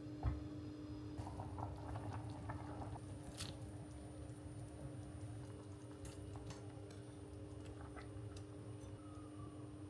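Kitchen food-preparation sounds: a single knock just after the start, then light clicks, taps and rustles, over a steady low hum.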